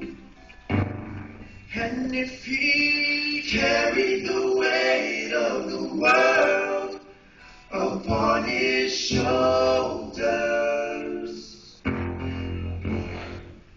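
A group of voices singing a gospel song together, in phrases with short breaths between them.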